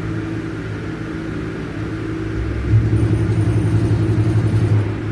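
Automatic car wash machinery running with a steady low hum. About two and a half seconds in, a louder, pulsing low rumble starts, and it stops shortly before the end.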